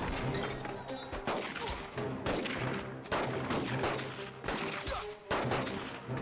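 Gunfire in a film shootout: a string of shots at uneven intervals, some in quick succession, over background music.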